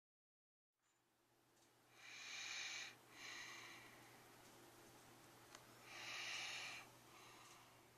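A sleeping child's breathing: a few faint, noisy breaths, a pair about two to three seconds in and another about six seconds in, over a faint steady hum.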